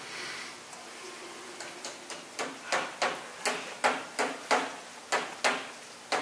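A run of sharp clicks or taps, about two or three a second, starting faint and growing louder after the first couple of seconds.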